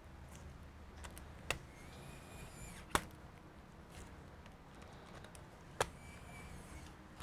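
Three sharp clicks with fainter ticks between, as laptop parts are handled. The clicks come about a second and a half apart, then about three seconds apart, and the middle one is the loudest. A low steady hum runs under them.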